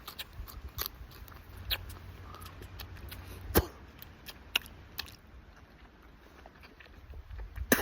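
A person biting through and chewing a raw staghorn sumac shoot: a scatter of sharp crunches and clicks, the loudest about three and a half seconds in, over a low rumble.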